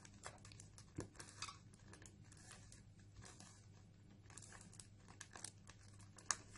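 Faint plastic clicking and rattling of a 3×3×3 Rubik's cube as its layers are turned by hand through a move sequence, with a sharper click about a second in and another near the end.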